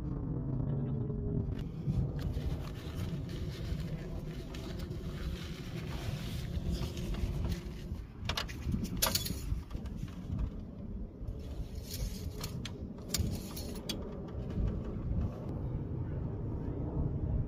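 Motor oil being poured from a bottle into the engine's open filler neck, over a steady low rumble, with a few sharp clicks of handling partway through.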